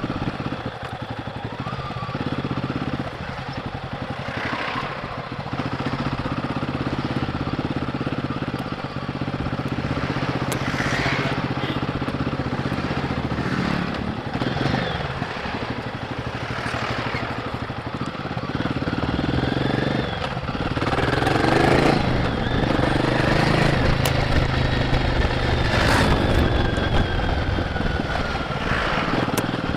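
Royal Enfield Guerrilla 450's single-cylinder engine running on the road through its stock exhaust, with wind and road noise. It gets louder about two-thirds of the way through, with revs rising and falling.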